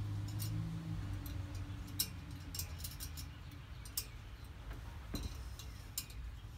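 Scattered light metallic clicks and ticks as a steel pick tool nudges small valve keepers into place around a valve stem, against the spring cup of a compressed valve spring, with a low hum in about the first second.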